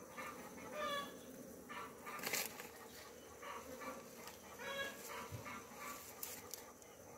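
Several short pitched calls from a domestic animal a few seconds apart, over the faint steady hum of honeybees from the open hive.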